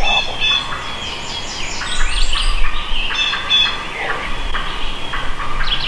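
Turkey yelping: several runs of short, evenly spaced notes.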